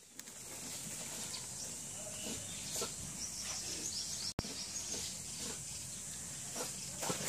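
Cats squabbling, with short low growls.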